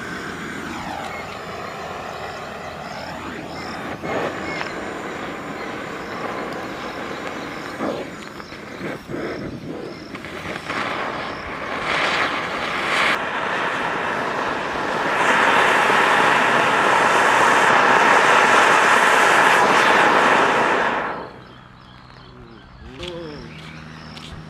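An anar (flowerpot fountain firework) glued to a chakri (ground spinner) is burning with a continuous hissing spray of sparks. It grows louder past the middle, is loudest for about six seconds, then cuts off sharply near the end. The anar's weight lets the chakri turn only slightly as it burns.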